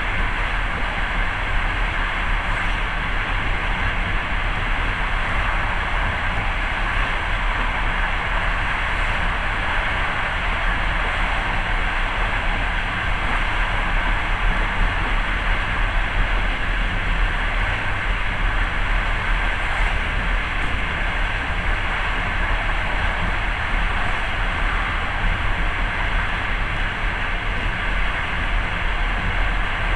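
Steady running noise of a moving passenger train, the wheels rumbling on the rails, heard from inside the carriage.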